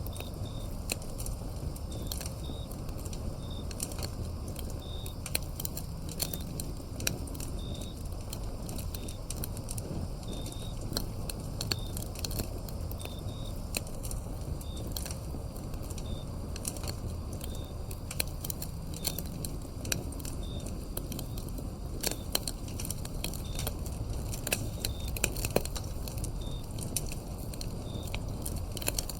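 Wood fire crackling, with frequent sharp pops over a low steady rush, while crickets chirp in short high notes about once a second.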